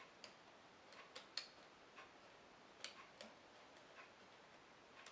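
Scattered light clicks and taps of small parts and a tool being handled while the vacuum cleaner's motor is taken apart to reach a carbon brush, about eight irregular clicks over a quiet background, the sharpest one about a second and a half in.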